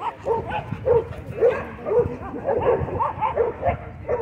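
Dogs barking repeatedly in quick, short barks, about three a second, while several dogs chase and play.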